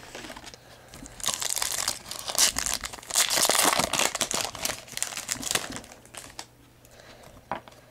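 Shiny wrapper of a 2010 Topps Unrivaled football card pack torn open and crinkled by hand, a dense crackle loudest in the middle seconds. Quieter rustling and a single click follow near the end.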